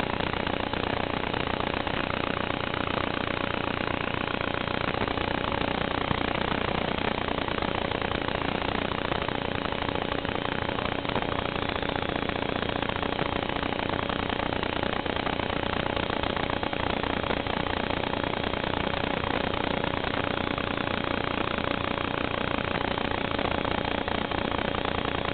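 Raw, steady noise on the DVR audio of a Realacc Swallow 130 FPV quadcopter: an even hiss with a faint steady hum under it.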